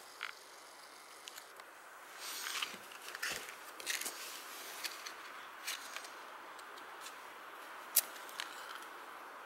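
Paper rustling in short bursts as a sheet is handled and spread over split kindling wood, with small clicks and handling noises. About eight seconds in comes one sharp click.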